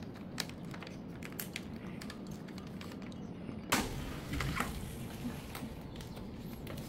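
Scattered light clicks and taps of objects being handled on a work surface, with one louder knock a little past halfway.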